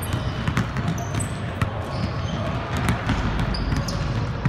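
Basketballs bouncing on a hardwood gym floor, many irregular knocks, with short high sneaker squeaks and a background hubbub of voices.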